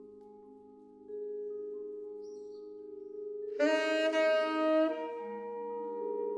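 Vibraphone ringing out sustained chords, with a new chord struck about a second in; just past halfway a saxophone enters with one long held note over them, then the vibraphone chords carry on.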